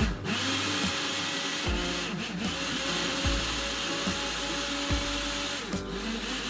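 Small electric motor running steadily with a high whine, over background guitar music.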